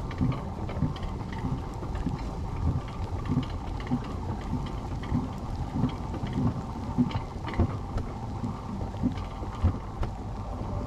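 Alpine coaster sled rumbling along its track, with scattered raindrops tapping on the camera.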